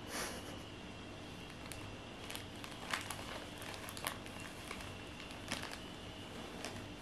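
Thin clear plastic bag crinkling and rustling in short scattered crackles as a kitten inside it shifts and paws at a feather wand toy, the loudest rustle right at the start.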